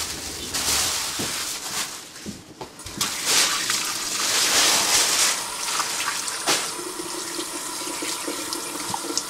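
Kitchen tap running into a stainless steel sink, the stream splashing over a sea bream that is rubbed clean by hand as its blood line is washed out. The rush of water swells and eases, and a faint steady hum joins about seven seconds in.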